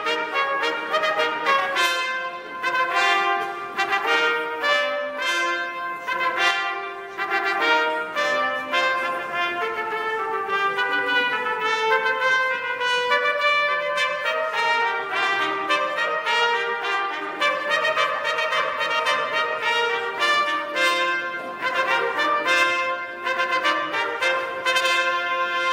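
Live brass music played continuously, trumpets carrying a stately melody with lower brass beneath.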